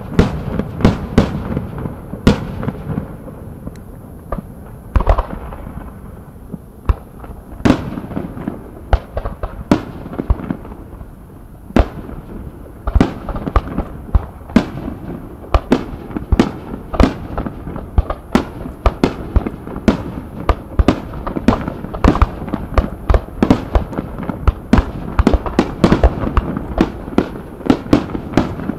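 Fireworks display: aerial shells bursting in an irregular barrage of sharp bangs over a low rumble. The bangs thin out for a few seconds after the start, then come thick and fast from about halfway on.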